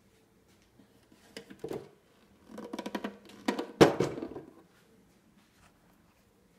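Handling noise as a hand grips and moves the plastic carrying handle of a Panasonic RX-CS710 boombox: a few small clicks, then a run of knocks and rattles with one sharp knock about four seconds in.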